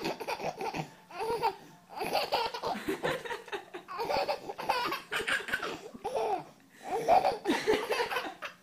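Baby laughing in several bouts with short pauses between.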